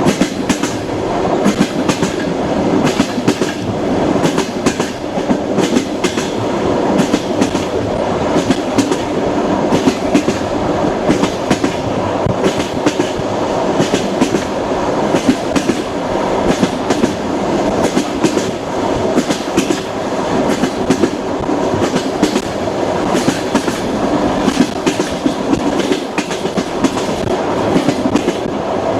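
Train wheels running over the rails: a steady rumble broken by frequent sharp clicks and clacks.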